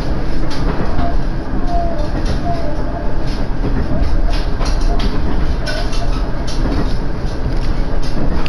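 Inside a diesel railcar on the move: steady low rumble of the engine and wheels on the rails, with irregular clicks and rattles and a few faint short squeaks.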